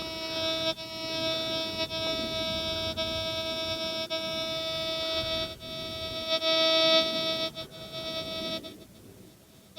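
Metal detector sounding a steady electronic tone with overtones, broken briefly a couple of times and fading away near the end, while its ground balance and all-metal mode are being set.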